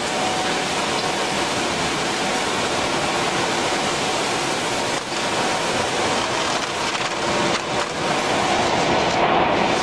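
Double-belt colour sorter for recycled plastic flakes running, a steady rushing noise of flakes pouring through its chutes over the hum of the machinery.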